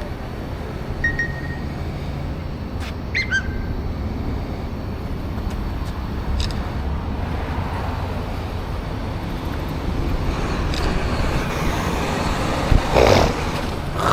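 Steady traffic noise from passing vehicles, with a few light clicks and short high chirps early on and a brief louder burst of noise near the end.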